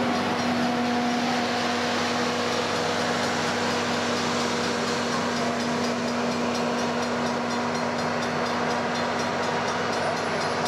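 Rail-mounted track-maintenance machines rolling through a grade crossing: a steady engine drone with a held hum over the rumble of their wheels on the rails. Through it comes a rapid, even ringing from the crossing signal's bell.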